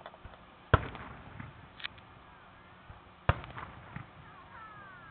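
Aerial fireworks shells bursting: two sharp booms about two and a half seconds apart, each followed by a short rumbling echo and a few smaller pops and crackles.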